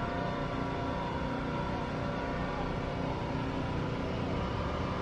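Steady ambient din of an outdoor night market, dominated by a continuous low mechanical hum with steady tones running through it.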